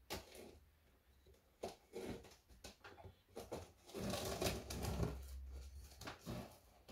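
A Ganzo folding knife cutting the packing tape and cardboard of a box: scattered clicks and scrapes, with a longer stretch of scraping and cutting about four seconds in.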